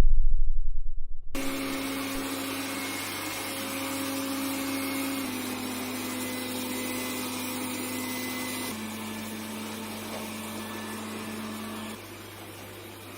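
Xiaomi Mi Robot Vacuum-Mop running with a steady whir and a humming tone that steps slightly lower in pitch about halfway through and again a few seconds later; the sound drops a little near the end.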